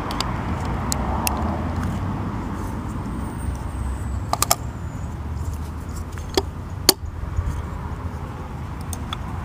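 A few short, sharp clicks and taps from a double-cylinder gate deadbolt being worked on, as a piece jammed in the cylinder is pushed out, over a steady low background rumble.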